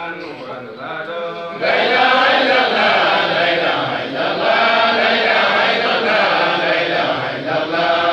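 Men's voices chanting a religious recitation together, becoming markedly louder and fuller about a second and a half in.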